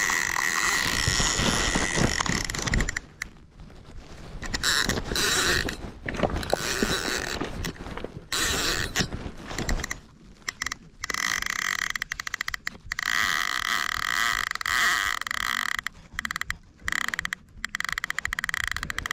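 Baitcasting fishing reel working under the pull of a big fish on the line: a steady whirring buzz from the reel, broken by stretches of fast clicking.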